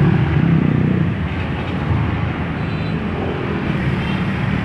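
Road traffic: a steady hum of motor vehicle engines running close by, with tyre and road noise.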